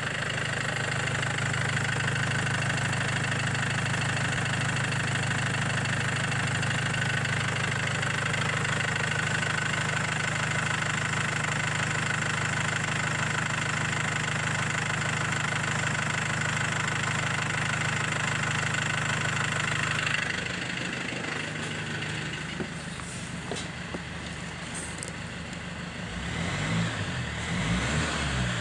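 2015 Mercedes Sprinter's 2.1-litre four-cylinder turbo diesel idling steadily, heard under the open bonnet. About twenty seconds in it turns more muffled as it is heard from the cab, and near the end it is revved up and down a few times.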